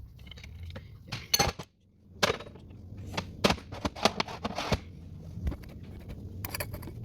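Sharp metal clinks and knocks of steel manual-gearbox parts being handled and fitted during reassembly, a dozen or so separate hits, a few ringing briefly.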